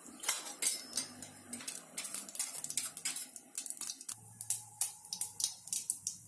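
Mustard and cumin seeds spluttering in hot oil in an aluminium kadai, with irregular sharp pops and crackles as the mustard seeds burst and jump against the metal. This is the tempering (vaghar) coming to readiness.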